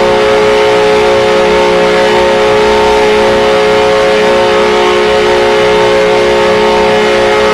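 Ice hockey goal horn sounding one long, loud, steady blast, a chord of several notes held without a break.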